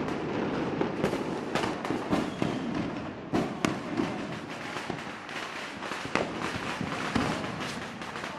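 Fireworks going off: a continuous crackle with many sharp bangs at irregular intervals, the loudest a little past three seconds in.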